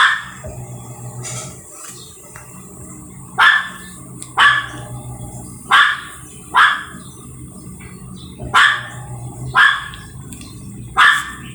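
Midea automatic washing machine in the spin-dry cycle with a badly wobbling, off-balance tub, which bangs loudly against the side of the cabinet. The knocks come in uneven pairs about a second apart, over a steady low hum.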